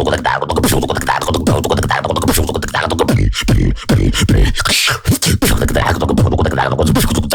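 Solo vocal beatboxing into a microphone: dense rapid mouth-made kick, snare and hi-hat sounds over a low bass line, with a couple of brief breaks about three and five seconds in.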